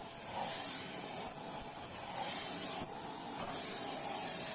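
Shark Powered LiftAway vacuum cleaner running, with a hissing rush of air through its crevice tool as it sucks at the carpeted cat tree. The hiss swells and dips several times.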